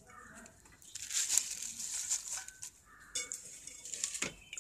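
Fresh spinach leaves rustling and crinkling as they are piled into an aluminium cooking pot, in a few short bursts, with a sharp knock near the end.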